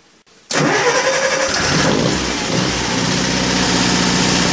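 Onan 12.5JC generator set, running on propane, starting up: the engine catches suddenly about half a second in, its speed settles over the next two seconds, and it then runs steadily.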